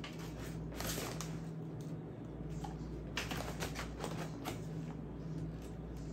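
Plastic bags crinkling and rustling as lab supplies are rummaged out of a cardboard box, with quick light clicks and taps in short clusters about a second in and again past the middle, over a steady low hum.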